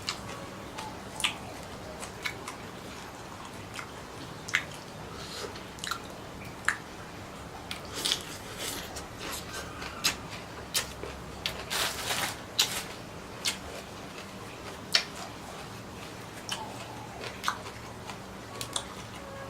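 A person chewing and biting squid and shrimp: irregular wet smacks, squishes and crunchy clicks of eating, with a longer noisy crunch about twelve seconds in.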